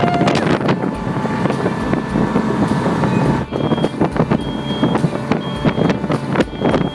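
Motorboat under way, its engine running over the rush of water, with wind buffeting the microphone.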